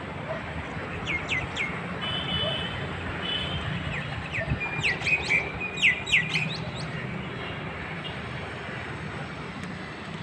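Small birds chirping in short, quick downward-sweeping calls, with a denser, louder run of chirps about five seconds in, over a steady low hum of city traffic.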